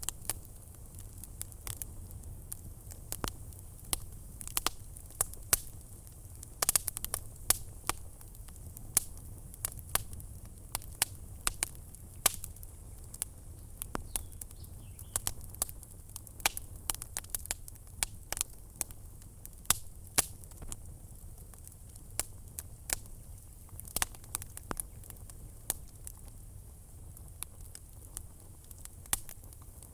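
Wood fire in a fireplace crackling, with irregular sharp pops of varying strength over a low steady rumble.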